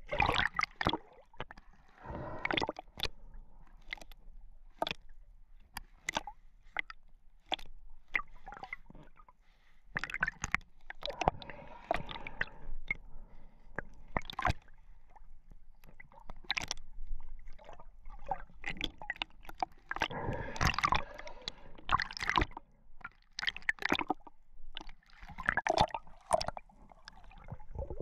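Underwater sound from a camera below the surface: water gurgling and sloshing with many irregular sharp clicks, and denser bursts of noise about ten and twenty seconds in.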